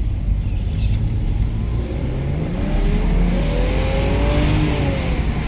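Lexus IS300's 2JZ-GE straight-six with aftermarket Brian Crower camshafts, pulling hard under acceleration. Its note rises in pitch from about two and a half seconds in, with a growing rush, then levels off near the end.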